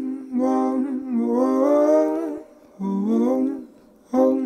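A solo voice sings a slow melody in short held phrases, about four of them, with the pitch sliding between notes and brief breaths between phrases. There is no audible accompaniment.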